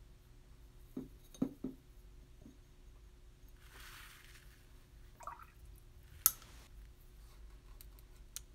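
Quiet sounds of a watercolour brush at work while colours are being mixed: a few light taps and clicks, a brief wet swish about four seconds in, and a sharper click a little after six seconds.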